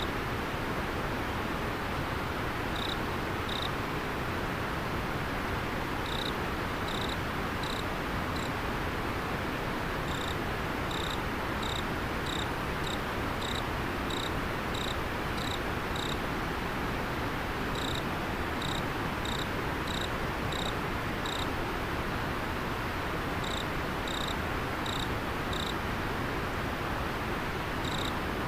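River water running steadily, with a single insect's short clear chirps repeated about one to two per second in runs broken by short pauses.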